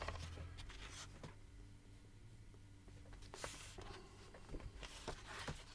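Quiet room tone with a faint steady hum, a few small clicks and a soft rustle about three and a half seconds in.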